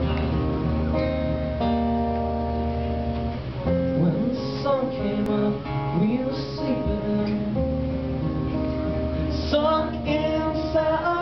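Acoustic guitar strumming held chords. A voice comes in over the guitar about four seconds in.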